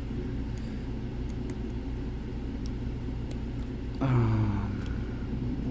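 Lock picks working inside a Lockwood Twin padlock, giving a few faint small clicks, over a steady low background rumble. About four seconds in there is a brief low vocal sound, a mutter.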